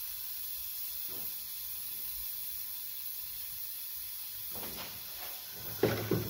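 Gas torch burning with a steady hiss while its flame heats a thin steel rod held in a vise. Several knocks and clatters of handling come near the end.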